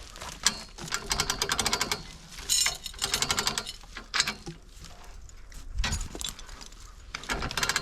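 Rapid, even mechanical clicking in several short bursts, with a steadier run of it starting near the end.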